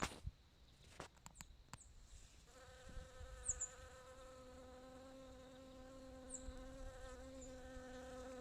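A bee buzzing steadily with a low hum, coming in about two and a half seconds in and holding to the end, after a few faint clicks.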